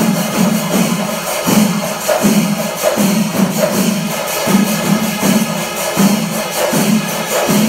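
Kerala temple percussion ensemble playing: drums beaten in a steady rhythmic pattern under fast, continuous clashing of hand cymbals.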